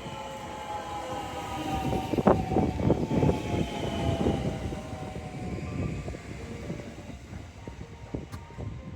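Electric train running past, its wheels clacking over the rail joints, loudest a couple of seconds in, with a motor whine that falls steadily in pitch as the train slows.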